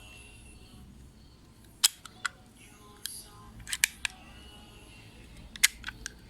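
Sharp metallic clicks and clacks from a Blow Mini 9 mm blank pistol being handled and taken apart, in three short clusters.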